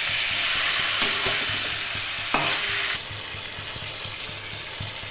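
Chicken pieces and onions sizzling in hot oil in a metal kadai as they are stir-fried for chicken kosha, with a spatula scraping and turning them. The sizzle drops suddenly in level about three seconds in.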